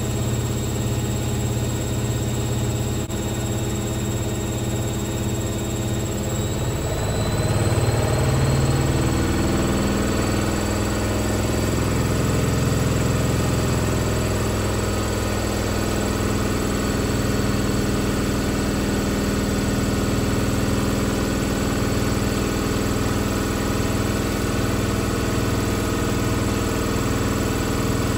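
Hoover VisionTech front-loading washing machine spinning, its motor whine climbing in pitch about six to eight seconds in and then holding steady. The drum is vibrating hard, with a squeal put down to the drum suspension straining.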